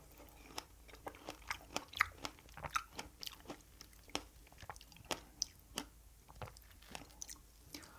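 A person chewing a strawberry cream cake close to the microphone, with many short, sharp, wet mouth clicks, thickest in the first few seconds and thinning out later.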